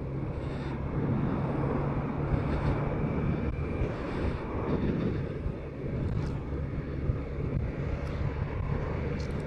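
BMW K1200RS inline-four engine running at a steady note on the move, with wind rushing over the microphone.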